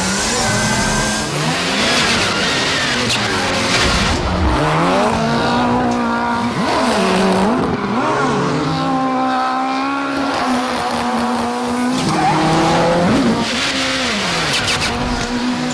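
Ford Fiesta rally car engine revving up and down over and over as the car spins donuts, with the tyres squealing and spinning against the pavement.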